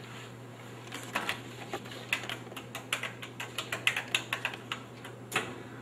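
Keys of a corded desk telephone being pressed, a run of quick, irregular plastic clicks, with a sharper click near the end.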